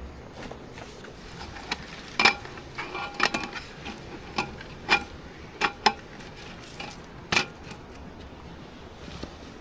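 Light metal clinks and taps from handling thin metal camping gear: about ten sharp strikes with a brief ring, spread over several seconds, the loudest about two seconds in and near the end.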